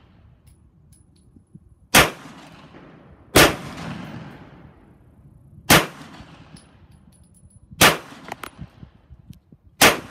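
A SIG Sauer P210 pistol firing 9mm 147-grain subsonic match rounds, five single shots at an unhurried, uneven pace of every one and a half to two and a half seconds. Each shot has a short echo.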